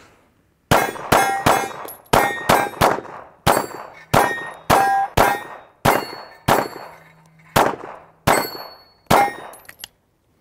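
Smith & Wesson M&P 2.0 5-inch 9mm pistol firing a string of about fifteen shots in quick succession, with short pauses between groups, and steel plate targets ringing after the hits. The pistol cycles without a stoppage.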